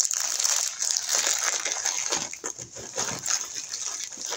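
Clear plastic wrapping and paper rustling and crinkling as a rolled diamond-painting canvas is handled and rolled up: a steady, uneven crackle made of many small ticks.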